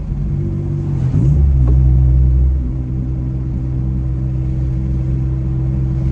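Naturally aspirated 3.0 L V6 of a Dodge Stealth R/T running through a freshly fitted aftermarket exhaust (stainless downpipe, high-flow cat, single muffler), heard from inside the cabin while driving. About a second in the pitch dips and shifts briefly, then the exhaust gets louder under load for about a second and a half before settling back to a steady cruise.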